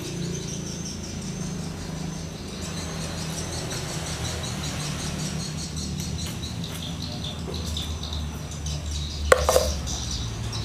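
A steady low hum with faint high chirping over it, and a single sharp metallic clink about nine seconds in.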